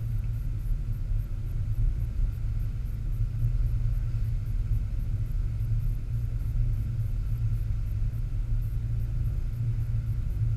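Steady low rumble of a center-console boat running at speed: engine drone and rushing water, with wind buffeting the microphone.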